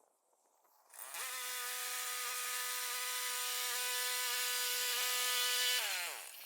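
Electric saw motor spinning up about a second in, running with a steady whine for about five seconds, then falling in pitch as it winds down to a stop.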